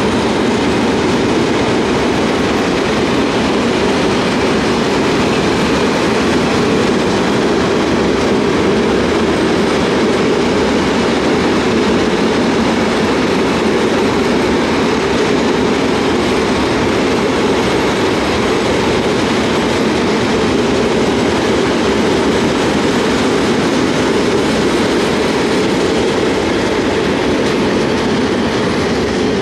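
Freight train of gas tank wagons rolling past, a steady, loud noise of wagon wheels on the rails.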